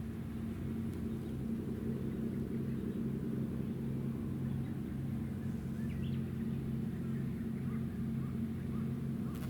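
Warship's engines running: a steady low hum made up of several fixed tones, from the Izumo-class helicopter destroyer Kaga.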